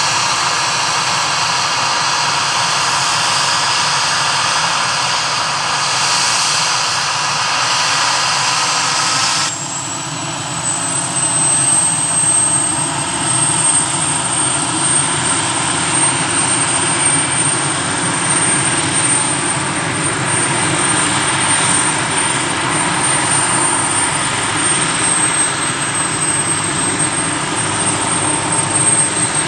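Airbus AS332 Super Puma helicopter's twin turboshaft engines running on the ground with the rotors turning: a steady turbine whine over a rushing rotor noise. About nine seconds in the sound changes abruptly. The high hiss drops away, a thin steady high whistle sets in, and the low rumble grows stronger.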